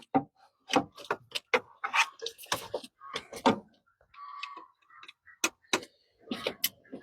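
Irregular sharp clicks and knocks of hand tools and engine parts being handled during spark plug and plug wire work, with a short scrape about four seconds in.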